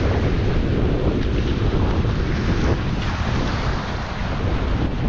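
Small surf breaking and washing up a sandy beach, with wind buffeting the microphone as a steady low rumble.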